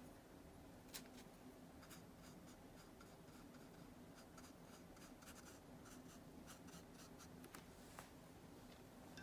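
Faint scratching and light ticks of a fine watercolour brush working paint onto paper, over a faint steady low hum.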